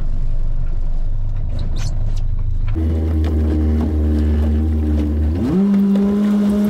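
Mercury outboard motor running, a low steady drone at first, then its note glides up about five and a half seconds in as the throttle opens and holds at the higher pitch, the boat getting under way.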